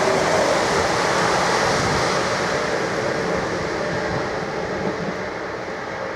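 Freight train rolling past, the rumble and rattle of its wagons growing steadily fainter as it moves away.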